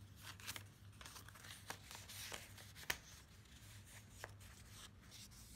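Faint rustling and light taps of paper and card as small cards are handled and the pages of a handmade paper journal are lifted, with one sharper tap about three seconds in.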